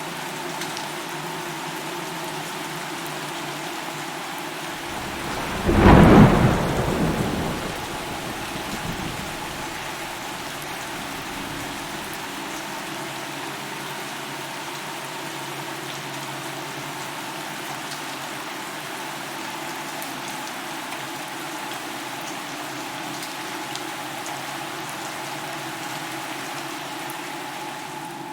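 Steady rain falling, with one loud thunderclap about six seconds in that rumbles away over the next few seconds.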